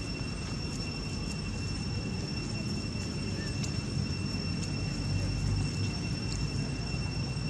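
Outdoor ambience: a steady, uneven low rumble like wind on the microphone, under a constant high-pitched insect drone. A few faint ticks come through, and no monkey calls are heard.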